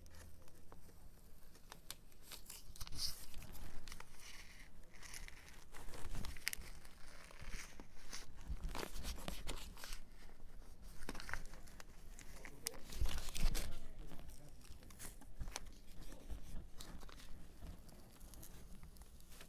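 Adhesive transfer tape and vinyl stencil being ripped and peeled off by hand, in irregular crackling, crinkling tears with occasional handling thumps.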